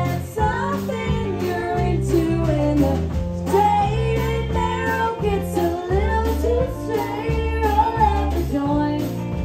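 Live country band music with a woman singing over a steady bass line and guitar.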